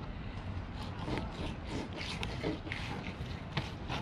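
Fillet knife scraping and rubbing through a salmon fillet against a plastic cooler lid, cutting the skin away from the flesh, in scattered soft scrapes and small clicks.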